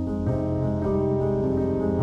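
Background music: held keyboard chords that change every second or so.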